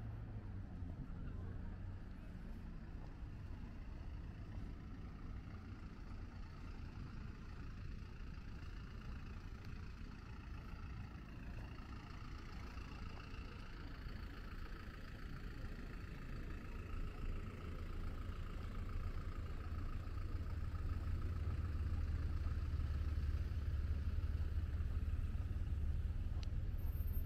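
Road traffic on a city street, with cars and a truck passing. A low rumble grows louder over the last third.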